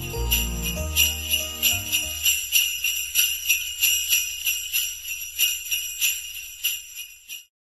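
Jingle bells shaken in a steady rhythm as the tail of a Christmas music bed. Low held notes die away in the first couple of seconds, and the bells fade out just before the end.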